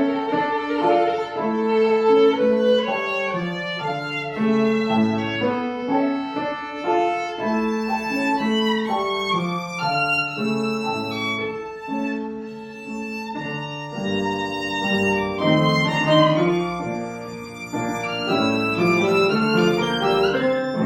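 Violin playing a melody with piano accompaniment, notes moving quickly and continuously; the music softens briefly around the middle and then grows again.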